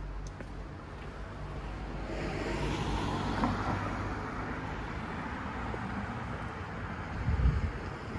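A car passing along the street, its tyre and engine noise swelling about two seconds in, peaking shortly after and fading away. A brief low thump near the end.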